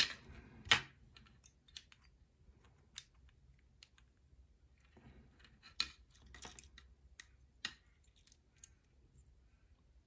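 Scattered small metal clicks and taps from a brass pin-tumbler lock cylinder as a metal follower tube pushes its core out. The sharpest clicks come under a second in and between about six and eight seconds in.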